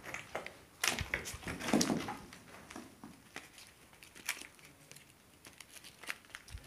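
Scattered crunches and clicks of brick rubble and gear shifting as players move and settle, in a small echoing room, the loudest about a second in and near two seconds.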